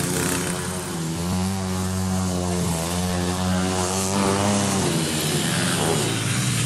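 Small off-road motorcycle engines running as dirt bikes ride past on a trail. One engine holds a steady note for a few seconds, then falls away about five seconds in.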